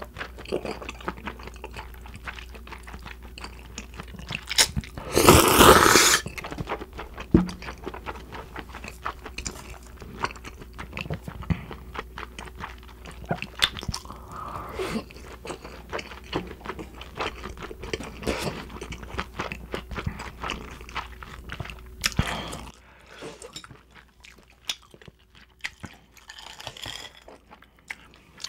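Close-miked chewing and slurping of cold naengmyeon noodles and bulgogi beef: dense wet mouth clicks, with one loud slurp about five seconds in, growing quieter near the end.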